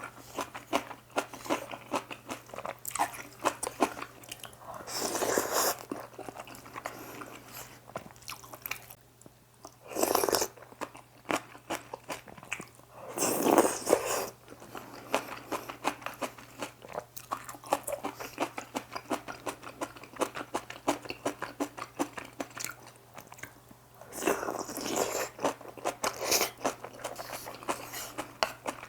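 Close-miked eating sounds: a person chewing and biting into spicy seafood instant noodles with rice, a steady run of small wet mouth clicks broken by a few louder stretches of about a second each, near five, ten, thirteen and twenty-five seconds in.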